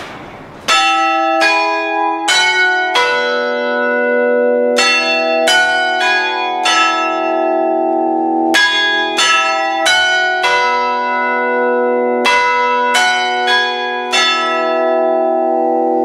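Clock hammers striking a set of five dead-hung church bells close up, playing a chime tune in four phrases of four notes with short pauses between, each stroke ringing on under the next.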